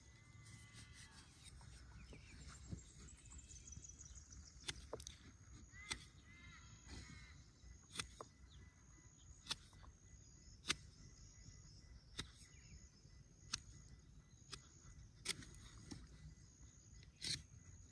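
Faint knife strokes whittling the end of a wooden bow-drill spindle, a sharp click about every second or so, with bird calls now and then.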